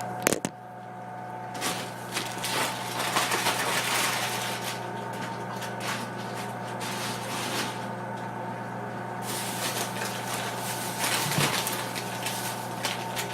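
Groceries being handled and put back into a refrigerator: a sharp click at the start, then irregular rustling and knocking in two stretches, over a steady low hum.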